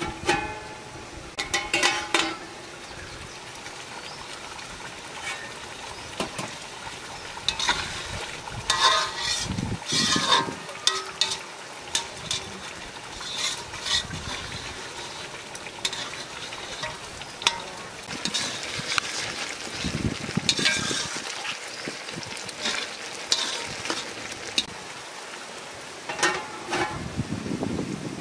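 Egg korma sizzling in a large metal pot, stirred with a metal spatula that scrapes and clicks against the pot, and a metal lid clanking as it is lifted off and put back.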